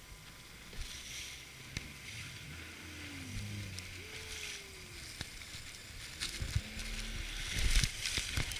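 Water rushing and splashing against an inflatable boat's hull as it runs through surf, swelling and fading over a low rumble. There are a few sharp slaps, and the loudest splash comes near the end as spray breaks over the side.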